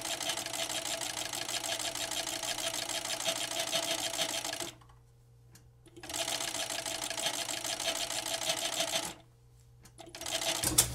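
FS-76MD furrier's sewing machine (fur overedge machine) stitching a seam with a fast, even rhythm. It stops for about a second twice, a little before halfway and again near the end, and starts up again each time.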